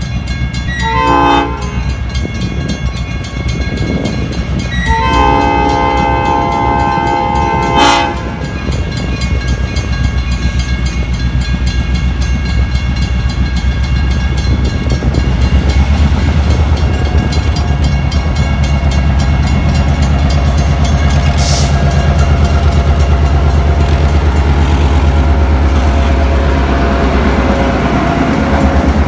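Diesel locomotive air horn sounding at a grade crossing: a short blast about a second in, then a long blast of about three seconds. After it the locomotives' diesel engines rumble steadily, growing louder as they pass close by.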